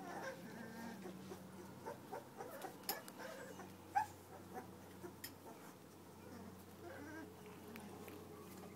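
Young puppies whimpering in short, faint squeaks, with a few soft taps in between.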